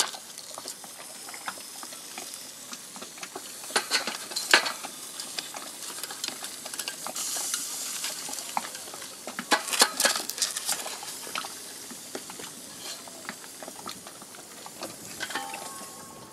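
Fish sizzling on the grate of a Magma gas grill, with a few sharp clicks and scrapes of a spatula on the metal grate about four seconds in and again around ten seconds.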